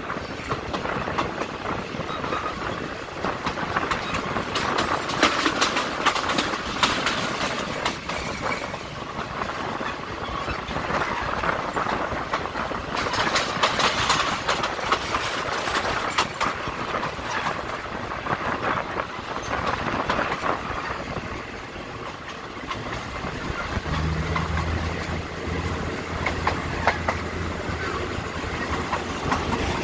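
Passenger train carriage rolling along the track, its wheels clattering with a dense run of clicks over the rails. About 24 seconds in, a steady low engine hum joins the rumble.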